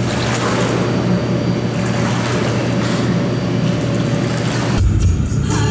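Pool water splashing and churning around a swimmer: a steady wash of noise with a low hum beneath it. Music with a tambourine cuts in near the end.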